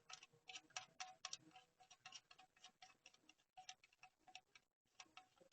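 Faint, uneven metallic clicking, several clicks a second in short runs with pauses, typical of a ratchet wrench being worked on a bolt.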